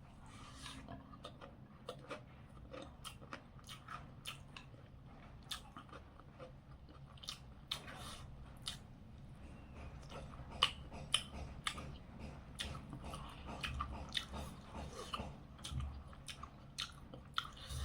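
A person chewing and biting food close to the microphone, eating a potato and soyabean dish: irregular wet smacks and small crisp clicks several times a second.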